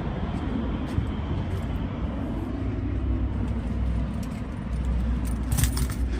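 Steady low outdoor rumble, then near the end a bunch of keys clinking and jangling as they are picked up.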